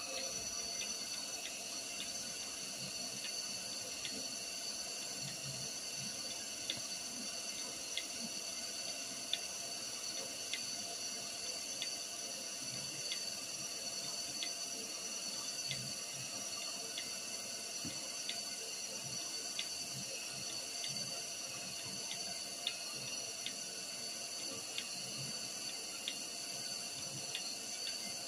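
Machine-shop equipment running with a steady rush like flowing liquid, a faint high whine and light ticks about once a second.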